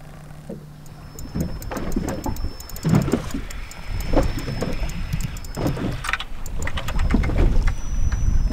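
A small fishing boat at sea, with rumbling wind noise on the microphone that grows louder from about a second in. Scattered knocks and sharp clicks sound over it.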